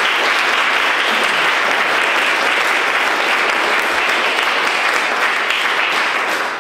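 An audience applauding steadily, fading out at the very end.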